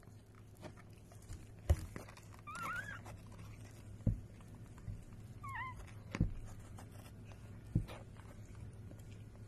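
Newborn kitten mewing twice, short wavering high-pitched cries, with a few sharp thumps in between.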